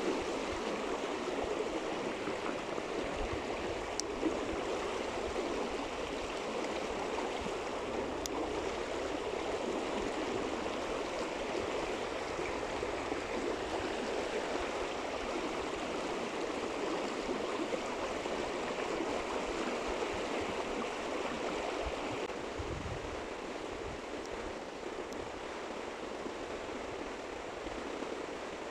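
Steady rushing of flowing water, a stream or river current running on without a break.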